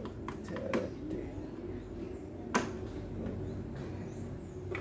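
A few sharp clicks and taps: a quick cluster of light clicks in the first second and one louder click about two and a half seconds in, over a low steady hum.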